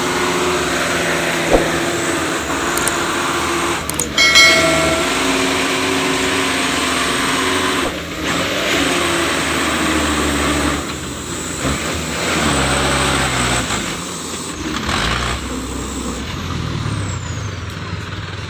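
Mitsubishi Fuso Canter dump truck's diesel engine labouring and revving, the pitch rising and falling as the truck struggles through deep mud. There is a brief loud squeal about four seconds in.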